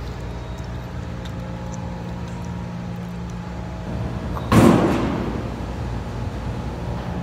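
Steady low hum of a large room, broken about four and a half seconds in by a single sudden loud bang that dies away over about a second.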